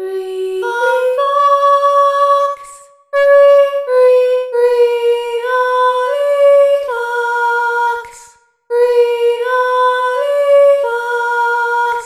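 Realivox Blue sampled female voice, played in Kontakt, singing a legato melody of held notes that step up and down. It comes in three phrases, with short breaks about three seconds and eight and a half seconds in.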